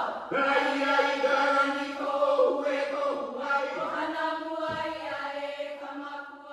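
Hawaiian chant (mele): voices in unison on long held, steady tones, with a few brief breaks, slowly fading out near the end.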